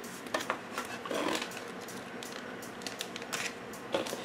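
Hard plastic model-kit parts being handled, set down and picked up: scattered light clicks, knocks and rustles, with a small cluster about a second in and a few more near the end.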